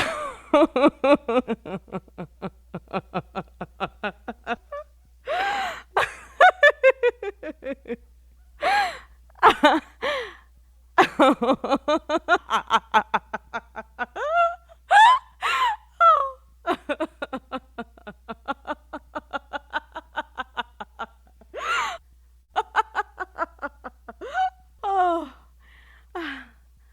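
A woman laughing and giggling in long runs of quick 'ha-ha' pulses, several a second, broken by sharp gasping in-breaths between bouts.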